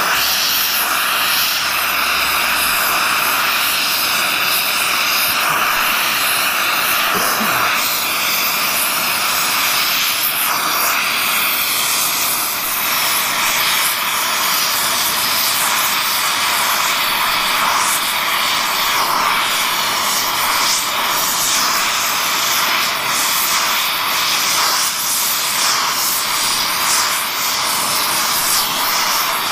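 Oxy-fuel torch flame hissing steadily while a brazing rod is run along a crack in a cast iron pump housing.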